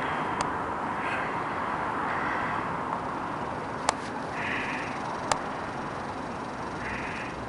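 Gulls calling a few times, short mewing calls of about half a second each, over a steady outdoor city hum, with a few sharp clicks.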